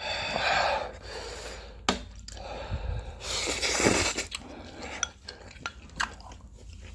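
Eating spicy instant noodles: slurping and chewing, with a few sharp clicks of chopsticks against the metal pot.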